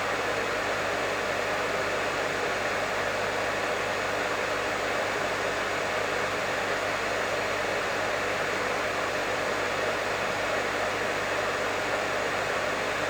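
Professional hair dryer running steadily: an even, unchanging rush of blown air with a faint motor hum underneath.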